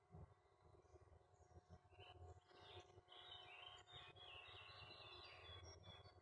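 Faint birdsong: a small bird twittering in quick runs of short high chirps, busiest through the middle, over quiet low background noise.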